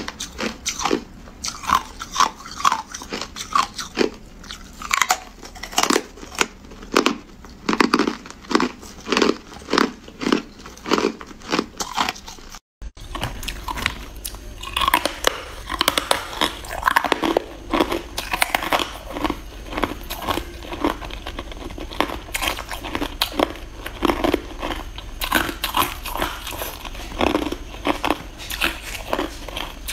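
Hard ice being bitten and crunched between the teeth, a quick series of sharp crunches with chewing. About halfway through the sound cuts off for an instant, and denser crunching of frosty ice cubes follows over a low hum.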